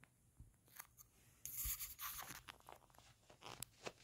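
Quiet scratching and rustling of a kitten's claws and paws on a fabric kicker toy and a shaggy plush bed as it grabs the toy and bunny-kicks it with its hind legs. A burst of rustling comes about a second and a half in, followed by scattered scratches and clicks.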